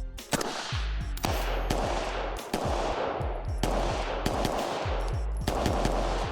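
Rifle shots fired in a string of about seven at uneven intervals, each shot ringing out briefly before the next.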